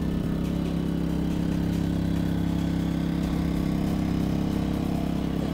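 A steady idling engine hum, level and unchanging in pitch.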